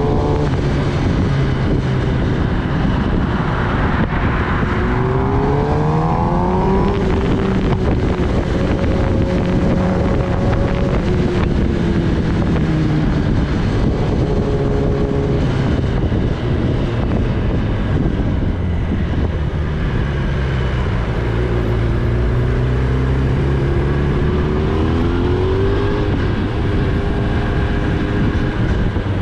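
Kawasaki Ninja ZX-10R's inline-four engine heard from the rider's seat while cruising, rising in pitch as it accelerates a few seconds in and again near the end. A steady rush of wind and road noise runs underneath.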